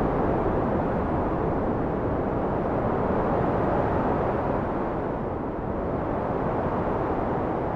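Wind blowing as a steady low rush, swelling and easing gently.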